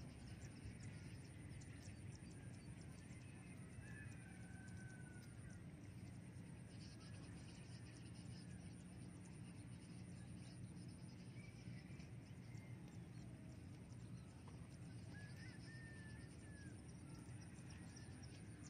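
Quiet open-field ambience: a steady low background noise, with a few short, faint bird chirps far off, around a third of the way in and again in the second half.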